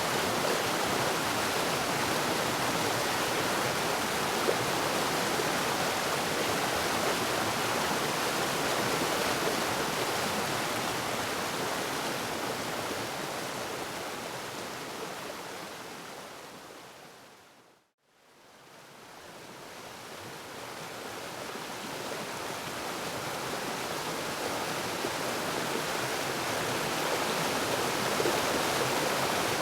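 Waterfall rushing as a steady, even roar of water that fades out to silence about 18 seconds in and fades back up to full level.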